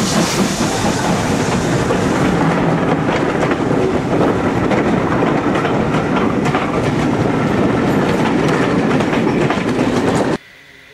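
Railway passenger coaches rolling past close by, their wheels clattering over the rail joints in a clickety-clack, until the sound cuts off suddenly near the end.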